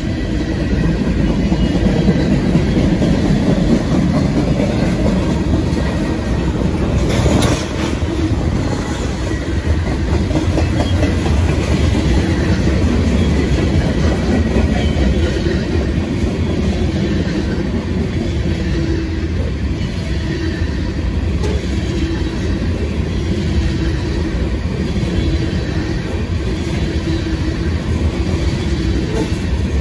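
Freight train cars, boxcars and covered hoppers, rolling past at close range, with the steady sound of steel wheels running on the rails. A brief clank about seven seconds in.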